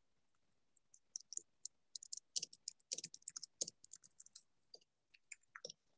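Faint typing on a computer keyboard: a run of quick, irregular key clicks starting about a second in and thinning out near the end.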